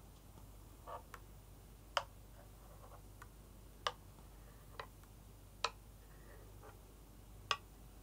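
A run of sharp, evenly spaced ticks, one about every two seconds, with a few fainter clicks between them, over a faint low hum.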